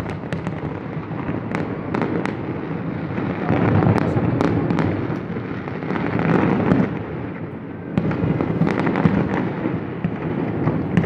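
Fireworks display: a continuous rumble of shell bursts that swells and fades, with many sharp cracks and bangs scattered throughout.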